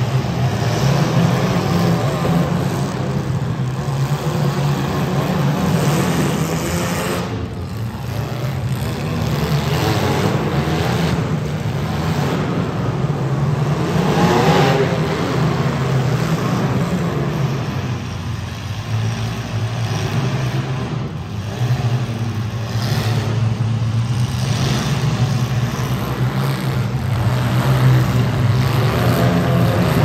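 Compact demolition-derby cars' engines running and revving hard, the pitch rising and falling as drivers floor it, with a brief lull in the middle.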